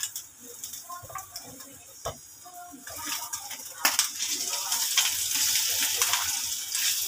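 Sardine-and-egg omelette frying in oil in a nonstick pan, the sizzle growing louder about three seconds in, with a few sharp clicks as a silicone spatula presses and scrapes the patty against the pan.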